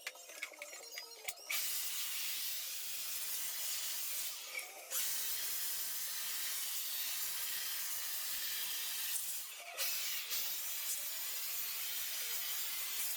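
Compressed-air blow gun hissing in three long blasts, each a few seconds, with short pauses between, blowing sanding dust out of the cracks between the teak tabletop slats.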